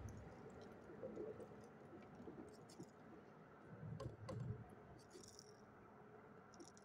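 Near silence with faint small clicks and rattles of hands handling fishing line and tackle close to the phone, and a couple of soft knocks about four seconds in.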